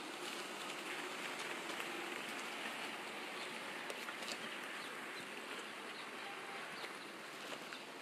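Steady outdoor background hiss, with a few faint ticks now and then.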